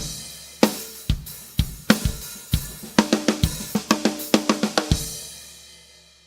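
Handmade cymbals played with a drum kit: separate strikes, then two quick runs of hits about three and four seconds in, the last cymbal ringing on and fading out near the end.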